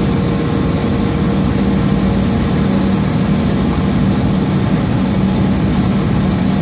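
Tractor-trailer truck's diesel engine running steadily at highway speed, heard from inside the cab as a steady low hum mixed with road and wind noise.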